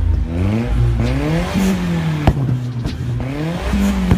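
Toyota Starlet Glanza's four-cylinder engine being revved repeatedly while the car stands still, its pitch rising and falling with each blip, with a sharp pop about halfway through and another near the end.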